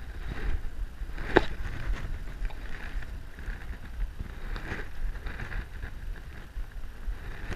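Strong wind buffeting the microphone with a steady low rumble, over the wash of wind-driven choppy water. A single sharp click about a second and a half in.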